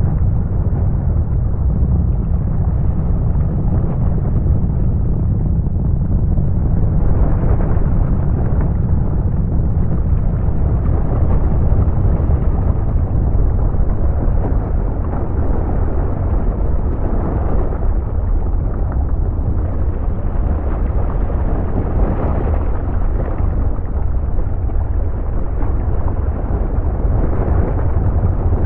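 A composed volcanic-eruption soundscape: a loud, continuous deep rumble with no break, swelling and easing every few seconds.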